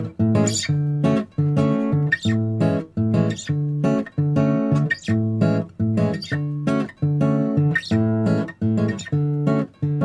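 Background music: acoustic guitar strumming chords in a steady, even rhythm.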